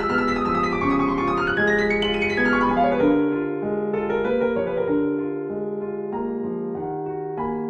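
Slow meditation music of piano-like keyboard notes over a steady held tone. The higher notes thin out about three seconds in.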